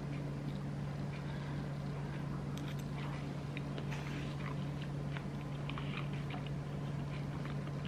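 Chewing a mouthful of baked beans and rice, with small scattered mouth clicks, over a steady low hum.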